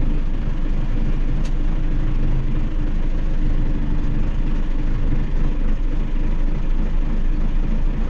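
A heavy engine running steadily, its sound mostly low-pitched.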